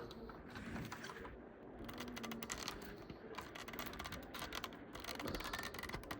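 Many small, irregular clicks and scrapes from hands working at the packaging to free a diecast model car, busier from about three seconds in.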